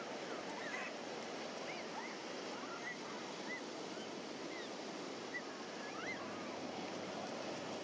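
Steady beach ambience: a wash of surf with a faint murmur of voices, and short, high chirps that rise and fall, about one every second.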